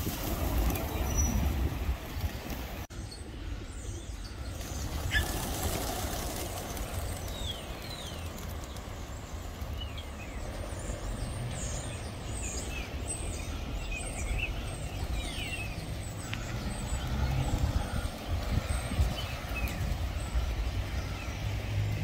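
Steady low town rumble with many short, high, downward-sliding bird chirps from about five seconds in.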